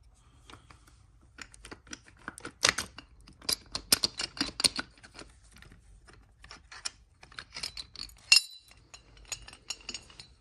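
Irregular metallic clicks and clinks of a socket wrench and bolts as the 13mm bolts of an engine mount are undone. One sharp ringing clink about eight seconds in is the loudest.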